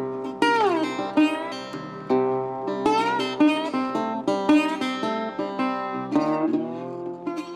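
Background music played on plucked strings, guitar-like, with quick picked notes and one note sliding down about half a second in.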